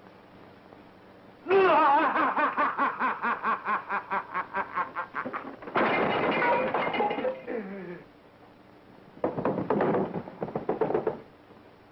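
A man laughing hard. Starting about a second and a half in, there is a long run of quick, even 'ha-ha' pulses, then a louder burst of laughter or shouting that falls in pitch, and another burst near the end, over an old film soundtrack's hiss.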